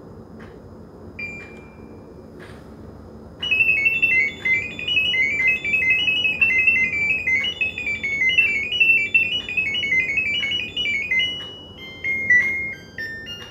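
A single short beep about a second in. Then, from about three seconds in, a fast run of high electronic beeps hopping between a few pitches, continuing to the end. This is an LG dual inverter split air conditioner sending its Smart Diagnosis data as coded tones, which a smartphone app listens to and decodes to check the unit's sensors, motors and refrigerant.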